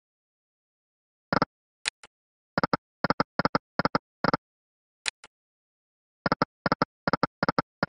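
Fruits Kingdom online slot game sound effects: a sharp click starting each spin, twice, each followed by a quick run of short tone blips as the reels stop one after another.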